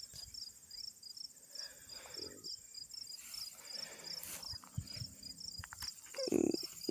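Crickets chirping faintly: a regular high chirp about three times a second over a steady high insect trill. A short buzz breaks in near the end.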